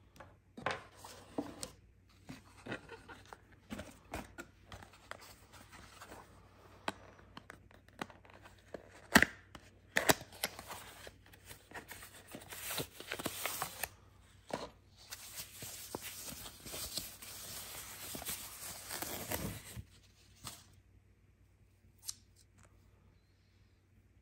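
Cardboard packaging and wrapping of a dash cam rustling and crinkling as hands open a small box insert, with many sharp clicks and knocks from handling the parts. The rustling is densest in a long stretch near the end, then stops, leaving a single click.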